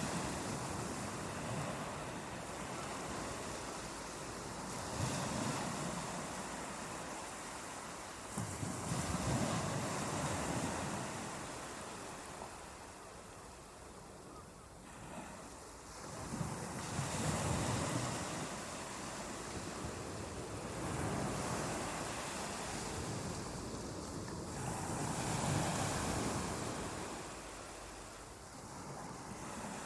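Ocean waves breaking on a beach, the surf swelling and washing in again every few seconds over a steady hiss.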